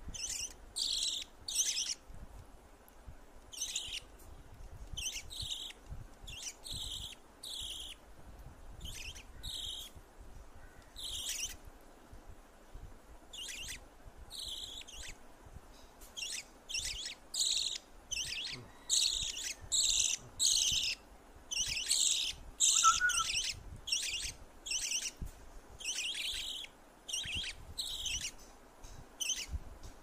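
Budgie chicks begging while being spoon-fed: short, high, rasping chirps repeating about once or twice a second, coming faster in the second half.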